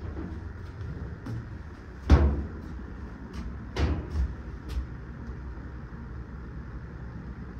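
Steady hum of a spray booth's ventilation, broken by a few dull knocks: a loud one about two seconds in and a quicker group of three or four a couple of seconds later.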